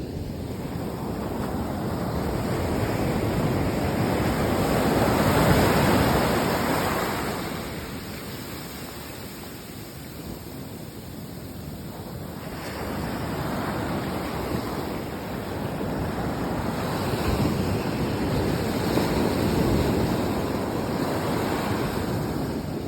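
Sea waves breaking and washing on the shore, swelling to a loud surge about five seconds in, easing off, then building again through the second half.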